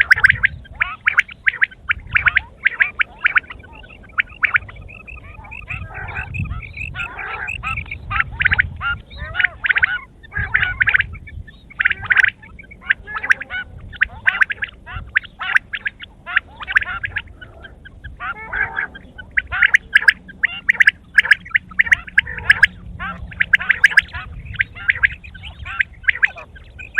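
Quail calling, many short chattering calls in quick succession that overlap with hardly a pause.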